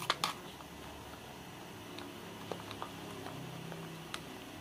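Metal spoon clicking and tapping against a thin plastic cup while glutinous rice flour mix is stirred: a few sharp clicks at the start, then scattered light taps, over a steady low hum.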